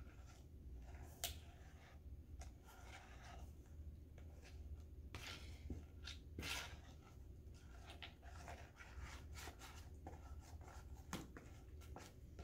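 Faint, irregular scraping and clicking of a utensil stirring a thick brown glue mixture in a plastic bowl, the mixture still wet and not yet formed into slime.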